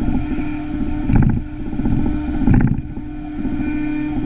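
CaMaster CNC router spindle running with a steady hum and a high whine as its bit cuts a curved profile into wood. The cutting noise swells louder about a second in and again about two and a half seconds in.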